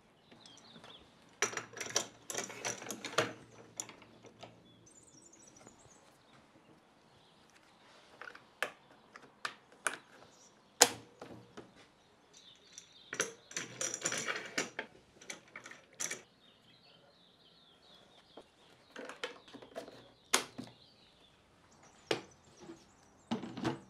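Handling noise from setting up an aluminium saw guide track and its clamps on a wooden workbench: two stretches of rattling clatter and several single sharp knocks, the loudest about halfway through. Faint bird chirps sound in the background.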